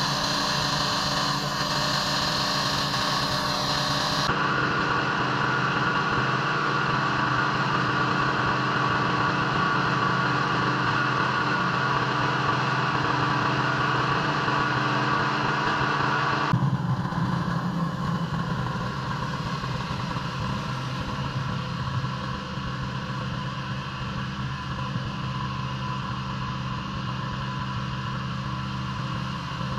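Engine-driven pressure washer running steadily with the water spray hissing. The sound shifts abruptly twice, about four seconds in and again about sixteen seconds in.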